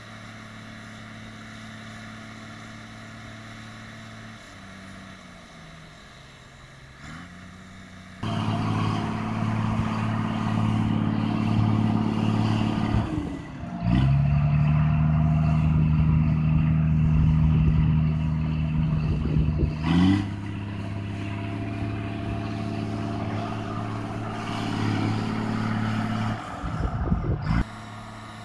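John Deere tractors' diesel engines working hard under load as they try to pull a tractor out of mud, the engine note rising and falling as they rev. The sound jumps suddenly louder about eight seconds in and stays loud.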